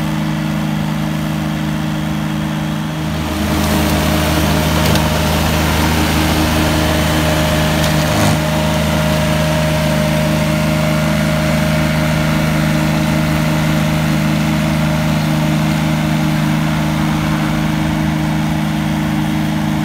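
McConnel Robocut tracked flail mower running steadily as it cuts rough grass, engine and flail rotor going together. About three seconds in it gets louder, with a harsher hissing edge and a deeper low hum, as it comes close.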